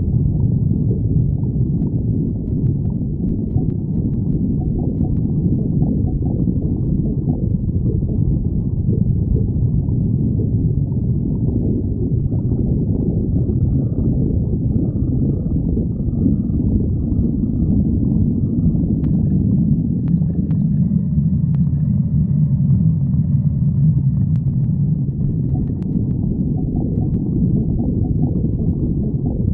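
Stomach growling: a long, unbroken low rumble with no pauses.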